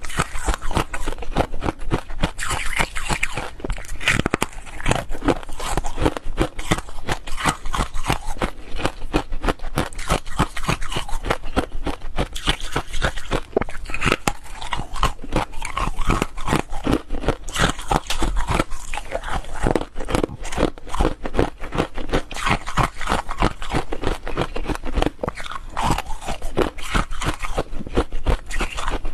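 Foam ice being bitten and chewed close to the microphone: a dense run of sharp crunches and crackles, one bite after another without a break.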